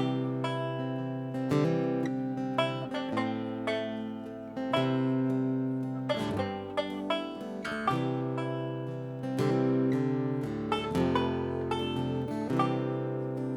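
Acoustic folk band playing an instrumental passage: quick plucked guitar and banjo notes over long held chords that change every second or two.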